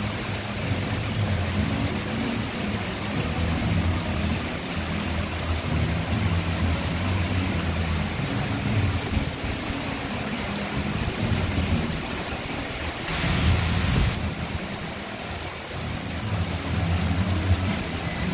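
Heavy tropical rain pouring onto a wooden deck and the canal water, a dense steady hiss with a low, uneven rumble beneath. About thirteen seconds in, the hiss swells for a second.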